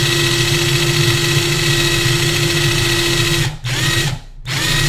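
Power drill running steadily while drilling out a screw in a laptop's frame, used in place of a proper screwdriver bit. The drill stops about three and a half seconds in, then runs in two short bursts.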